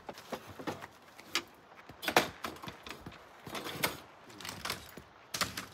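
Camping gear being handled and a folding camp table being unfolded: a string of irregular metal clicks, knocks and rattles as parts are moved and snapped into place, the loudest knock about two seconds in.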